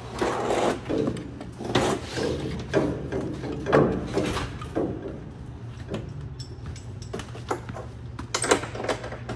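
Firefighter turnout gear and breathing-apparatus air cylinders scuffing, rubbing and knocking against the floor and the metal stairs as a downed firefighter on a rescue litter is hauled backward to the foot of the stairs. The scuffs and knocks come irregularly and are busiest in the first five seconds, with a couple more sharp knocks near the end.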